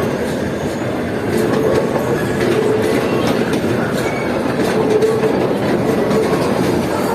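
Small 'toy' train running along its track, with a steady rumble of wheels and a scatter of clicks over the rails.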